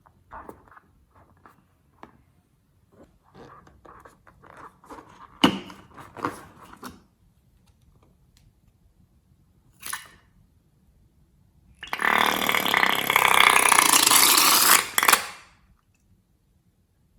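Slime being handled and mixed: soft sticky crackles and clicks with a sharp snap about five seconds in, then a loud hissing rush lasting about three and a half seconds near the end.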